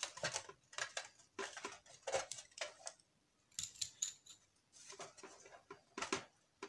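Faint, irregular clicks and light clatter of small parts being handled inside a disassembled electric heater's plastic housing.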